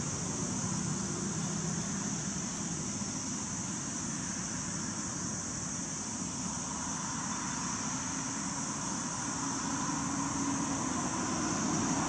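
Steady ambient background noise: a low rumble under a constant high-pitched hiss, growing a little louder near the end.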